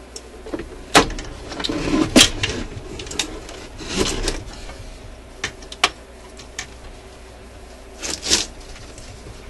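Handling knocks, clicks and scraping as a record changer on its wooden mounting board is lifted out of a suitcase record player's case and tipped up on edge. The sharpest knocks come about a second in and just after two seconds, with another cluster around four seconds and a last one near the end.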